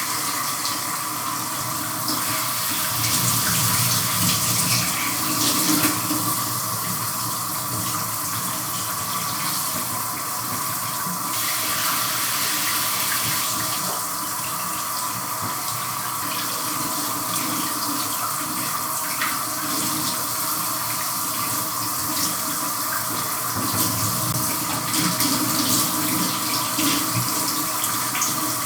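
A shower running with someone washing under it: a steady hiss of falling spray whose sound shifts now and then as the water's path changes.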